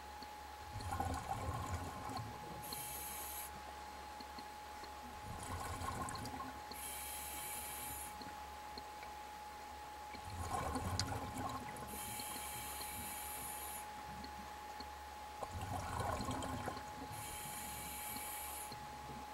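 Scuba diver breathing through a regulator underwater: four slow breaths about five seconds apart, each a burst of bubbling exhaust followed by a hiss of inhalation. A faint steady whine runs underneath.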